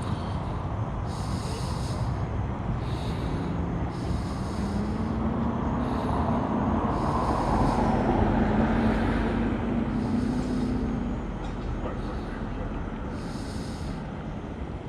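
Street traffic with a heavy vehicle passing by: its engine sound swells to a peak about eight seconds in, then fades away.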